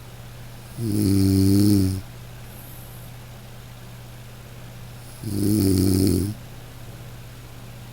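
A person snoring: two snores, each about a second long and about four seconds apart, over a steady low hum.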